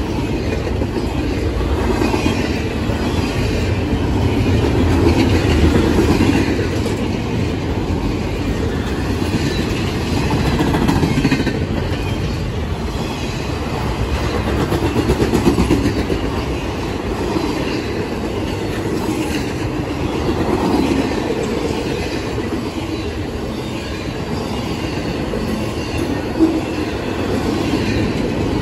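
CSX intermodal freight train passing at speed: a steady loud rumble and clatter of steel wheels on the rails as the trailer- and container-laden cars go by, with one sharp knock near the end.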